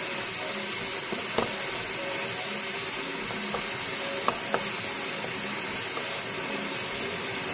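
Chopped bacon sizzling steadily in a hot frying pan, stirred with a wooden spoon that knocks lightly against the pan a few times.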